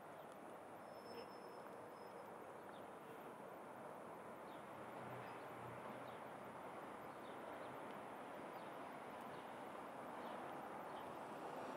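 Quiet city street ambience: a faint, steady hum of distant traffic, with a few brief high chirps scattered through it.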